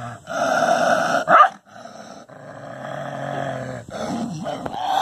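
A dog growling in several stretches, broken off abruptly between them, with a brief louder burst about a second and a half in.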